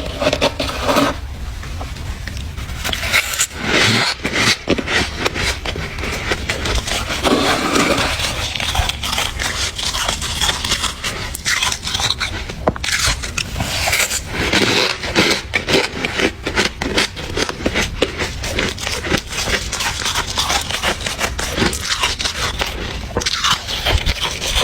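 Close-miked biting and chewing of soft, powdery freezer ice: dense, crackly crunching with many sharp crunches in quick succession.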